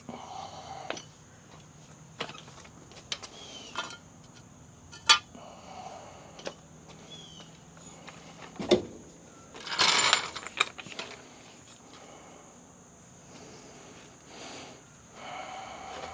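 Scattered metal clinks and knocks of parts and tools being handled while a rear axle is fitted, with a short scraping rush about ten seconds in.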